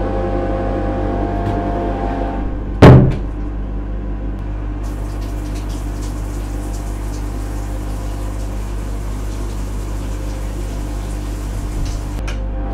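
Loud fan running with a steady hum. About three seconds in, a door bangs shut once, the loudest sound. A soft hiss joins it from about five seconds in.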